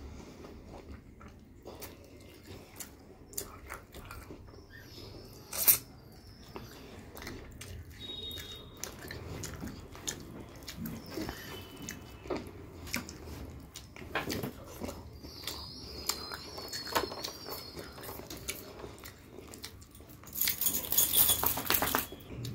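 Close-up eating sounds: chewing rice and chicken curry, with wet smacks and clicks of the mouth, and a louder stretch of crunching near the end.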